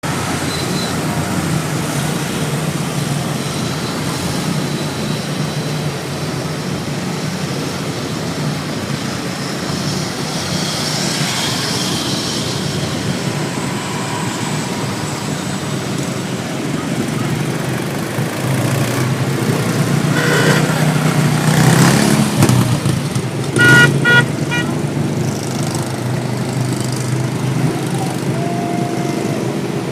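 Small engines of riding lawn mowers and similar small vehicles running and driving past, getting louder in the last third as machines go by close. Several short horn beeps sound about three-quarters of the way through.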